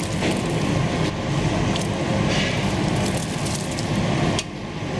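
Steady rumbling kitchen noise, with black-eyed beans tipped from a steel bowl dropping into a large pot of simmering curry; the noise dips briefly near the end.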